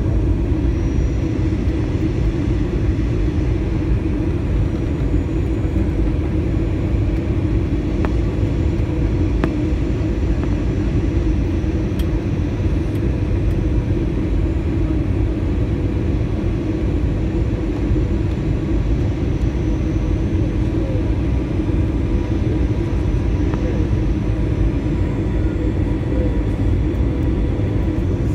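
Steady cabin drone inside an airliner on its approach to landing: engine and airflow noise carried through the fuselage, a low, even rumble with a faint steady hum.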